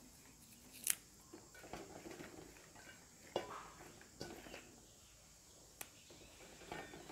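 Faint rustling and snapping of fresh herb stems (rice paddy herb, Thai basil, culantro) being picked by hand over a stainless steel bowl. A few light, sharp clicks and taps come at intervals.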